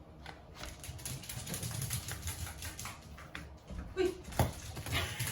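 Corgi's claws clicking and pattering on a hard floor as the dog moves about, with a couple of louder knocks about four seconds in.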